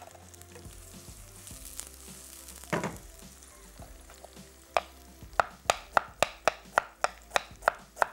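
Onions and garlic frying in oil in a kadai on a gas flame, a faint steady sizzle with a single knock near three seconds. From about five seconds in, a knife chopping fresh ginger on a wooden board, about three strikes a second.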